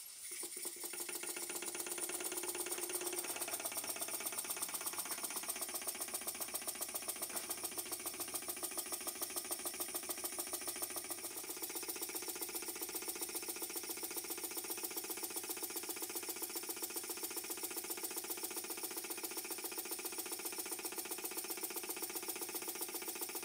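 Vintage Doll toy steam engine running on compressed air: a fast, even beat of knocks and clatter from its cylinder and motion work, picking up in the first second or two and then running steadily. It stands on a soundboard that makes it louder.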